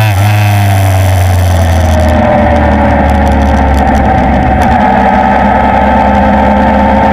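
Motorcycle engine running steadily at road speed, its pitch rising slowly a few seconds in, with wind noise on the microphone that eases about two seconds in.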